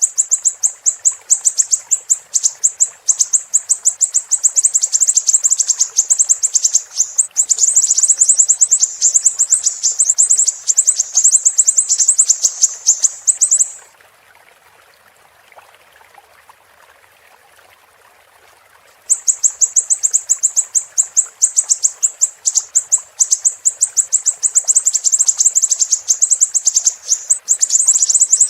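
Siri-siri songbird singing a fast, high-pitched chattering song of many rapid chirps a second. It breaks off about halfway for some five seconds, then starts again. A steady hiss of running water lies underneath and is heard alone during the pause.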